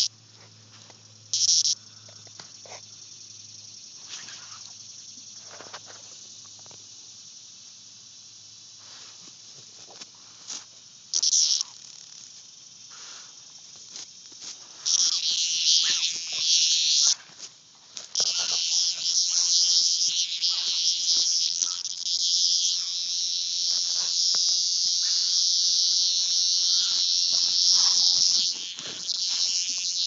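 A cicada buzzing loudly and harshly as two dogs paw and nose at it, the distress buzz of a disturbed cicada: first in short bursts, then almost without a break through the second half. Faint rustling in the grass between the buzzes.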